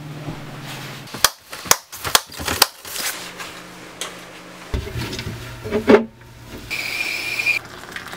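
A quick run of sharp clicks and knocks about a second in, then a louder knock, then a stovetop kettle whistling for about a second near the end, over a low steady hum.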